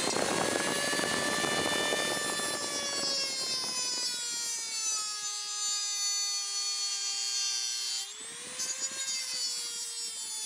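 Dremel rotary tool with a cutoff wheel cutting a sheet-metal panel: a high-pitched motor whine over gritty grinding. The grinding eases about halfway through, leaving the whine on its own and a little lower, then comes back about eight seconds in as the wheel bites into the metal again.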